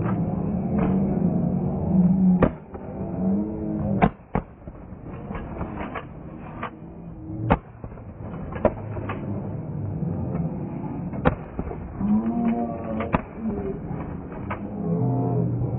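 Police less-lethal guns firing non-lethal rounds: about fifteen sharp shots at uneven intervals, some in quick pairs. People are yelling between the shots, loudest at the start and near the end.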